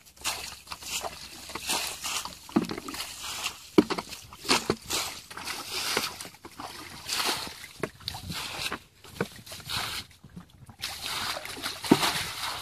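Plastic buckets scooping and dumping muddy water while a shallow ditch is bailed out by hand: irregular sloshes and splashes, with a few sharp knocks of bucket against mud or rim.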